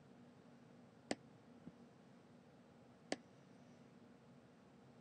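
Two sharp computer mouse clicks about two seconds apart, with a faint softer tick between them, over near-silent room tone.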